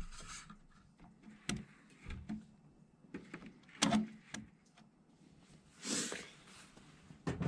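A few scattered small clicks and knocks and one brief rustle, from wiring, connectors and tools being handled.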